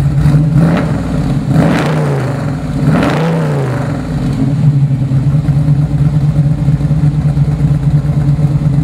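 1969 Camaro's 377-cubic-inch V8 running through ceramic-coated headers and dual exhaust. It is blipped twice in the first few seconds, each a quick rise and fall in revs, then settles into a loud, steady, lumpy idle.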